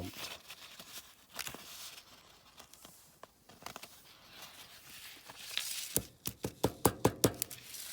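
Small clicks, taps and rustling from handling a small model part and materials at a workbench, with a quick run of sharp taps near the end.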